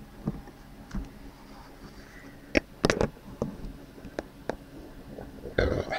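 A knife and fork clicking and knocking against a plate while a piece of steak is cut: scattered short clicks, the sharpest a few seconds in, with a louder scrape near the end.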